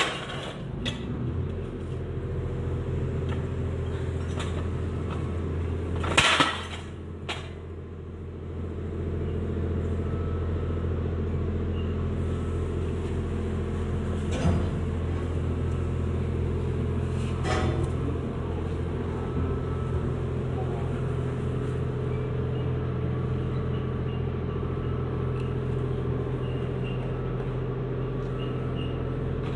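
A steady engine hum from idling machinery, with a few sharp knocks of concrete paving stones being set by hand; the loudest knock comes about six seconds in, lesser ones around fifteen and eighteen seconds.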